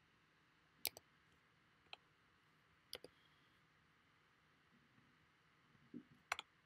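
Computer mouse clicking, faint and sharp, a few clicks in quick pairs: about a second in, around two and three seconds in, and twice more near the end, over faint room hiss.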